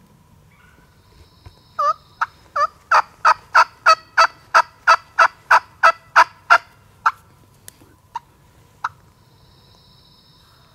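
Turkey yelping: a loud run of about fifteen short notes, roughly three a second, that breaks off into a few spaced single notes near the end.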